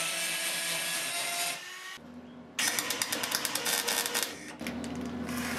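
MIG welding arc crackling as a steel repair patch is tacked into rusted car bodywork, in two bursts with a short break about one and a half seconds in.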